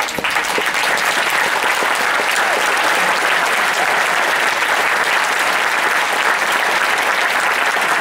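Audience applauding steadily, a dense clatter of many hands clapping that breaks out suddenly at the start.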